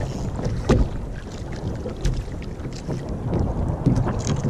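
Wind buffeting the microphone and sea water slapping on a sit-on-top kayak's hull, with a few sharp knocks, the loudest about a second in.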